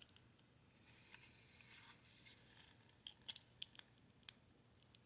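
Near silence, with a faint scrape and a few light clicks about three seconds in, from small parts being handled.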